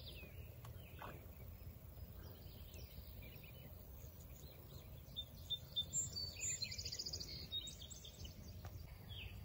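Songbirds chirping and calling faintly, busiest in the middle few seconds, including one fast trill.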